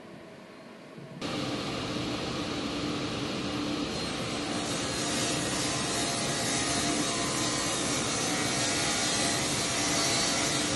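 Sliding table saw running in a woodshop, a steady machine noise that starts abruptly about a second in with a faint hum underneath. From about four and a half seconds in it grows brighter and hissier as the blade cuts through an oak board being fed along the sliding table.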